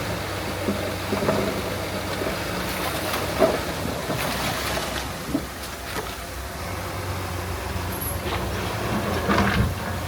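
Diesel engine of heavy earthmoving machinery running steadily, with scattered metallic clanks and knocks.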